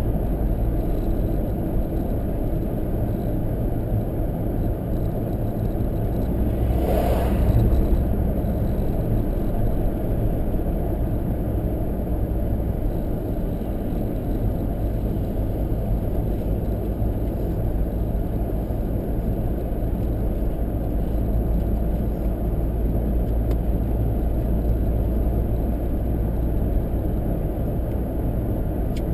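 Car driving along a road: a steady low rumble of engine and tyre noise, with one brief louder swoosh about seven seconds in.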